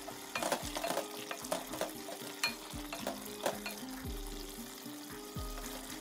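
Beef being bhuna-fried in oil with whole spices in an aluminium pot: a light sizzle, with irregular scrapes and clicks as a wooden spatula stirs the meat against the pot.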